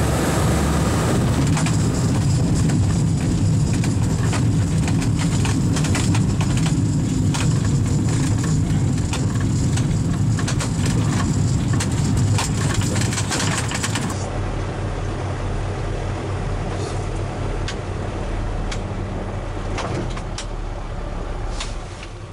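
Twin Rotax 912 flat-four engines and propellers of a Che-29 amphibious light aircraft running, with a loud, rumbling engine sound that drops about 14 seconds in to a quieter, steady hum.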